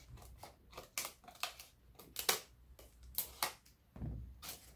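Irregular run of small sharp clicks and rustles from hands working at a wristwatch's box packaging, cutting it free.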